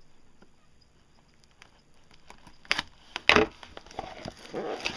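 Card packaging being handled: a few sharp knocks and taps against cardboard, then crinkling and rustling of wrapping.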